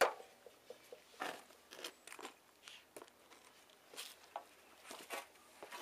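Scattered light knocks and clicks of wood and tools being handled and set in place, with a sharper knock at the very start; no saw is running.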